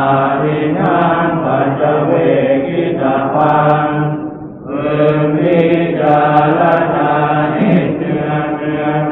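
Thai Buddhist evening chanting, voices intoning on a steady monotone, with a short breath pause about four and a half seconds in.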